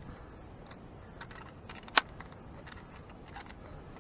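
Light clicks and rattles from a handheld digital fish scale and its metal hook being handled, with one sharp click about two seconds in.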